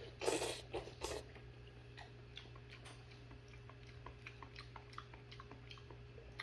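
A person eating spicy fish stew: a few short, loud slurps in the first second as he eats from the bowl, then soft chewing clicks, several a second.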